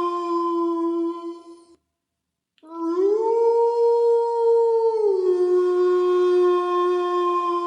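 Wolf howling: a long steady howl ends under two seconds in, and after a brief silence a second long howl rises in pitch, holds, then drops back down to a steady lower note.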